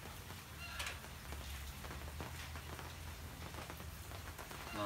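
Faint scattered pattering, like light rain on the shelter roof, over a low steady hum. A brief high chirp comes about a second in, and a short pitched call right at the end.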